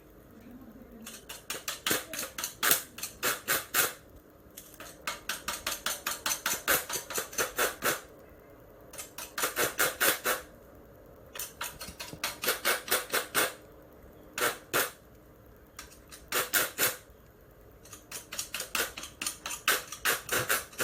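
Bursts of rapid sharp clicking, about seven clicks a second, in groups of one to three seconds with short pauses between them.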